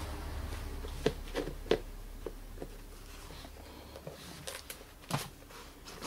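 Shoemaker's pliers working at a metal washer on a suitcase handle fitting: a scattering of small metallic clicks and taps, over a low steady hum.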